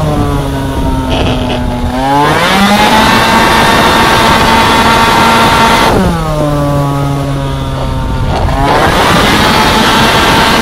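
Two-stroke racing scooter engine heard from onboard: the revs drop as the rider shuts off, hold low for about two seconds, then climb back to a steady high-revving run. The same drop and climb comes again about six seconds in.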